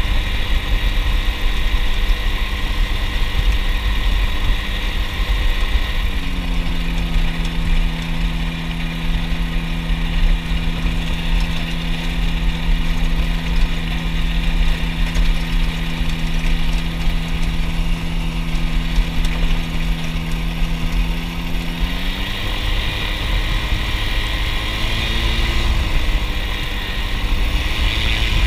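Ultralight aircraft's engine and propeller running steadily while it taxis, under a constant low rumble. A held engine tone settles in about six seconds in and shifts in pitch about twenty-two seconds in.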